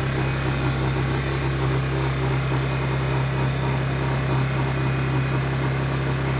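Honda EU1000i inverter generator's small single-cylinder four-stroke engine running steadily with nothing plugged in: an even, unchanging hum.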